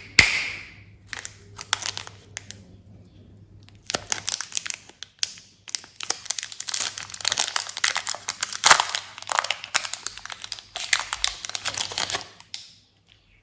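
Candy wrappers being handled and opened: a sharp snap at the start, a few scattered crackles, then dense crinkling from about four seconds in until near the end.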